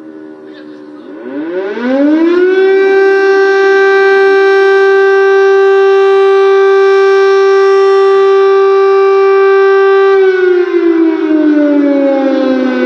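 Air-raid siren sounding an air-strike alert: it winds up in pitch about a second in, holds one loud steady tone for several seconds, then slides down in pitch near the end.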